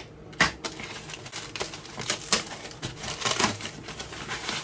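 Soft plastic parcel wrapping crinkling and rustling in irregular crackles as it is pulled open by hand.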